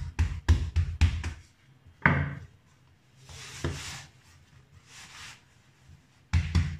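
Rolling pin beating and rolling out chilled croissant dough on a granite countertop: a quick run of dull thumps, about four a second, then a single knock as the pin is put down about two seconds in. Hands then slide and pat over the floured dough with a soft rubbing, and a few more thumps come near the end.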